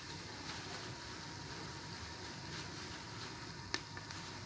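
Sliced red onions frying in oil in a steel pot: a steady sizzling hiss with a few faint crackles and one sharper click near the end.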